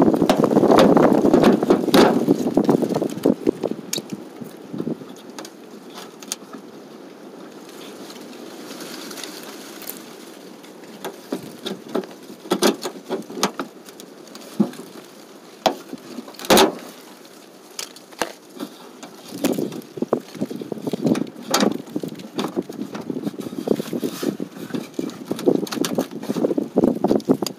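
Wind buffeting the microphone, strong at the start and again in the last third, with scattered clicks and knocks of hands working on a rusty vehicle body. The loudest sound is a single sharp knock a little past the middle.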